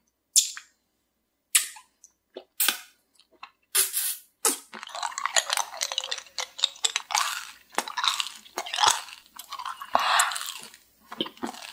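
Close-up eating sounds of a crunchy 수수깡 (sorghum-stalk) candy jelly: a few separate crisp bites, then about seven seconds of steady crunchy chewing.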